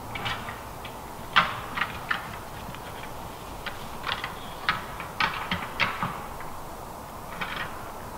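Red deer stags' antlers clashing: a series of irregular, sharp clacks and rattles, the loudest about a second and a half in and several in quick succession around the middle.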